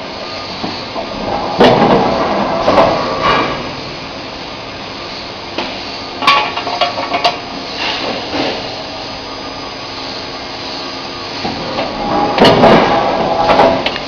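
Hot-forging line with an induction heating furnace and a forging press: a steady machine hum broken by loud metal bangs and clanks in clusters as the glowing billets are handled and pressed, the loudest cluster near the end.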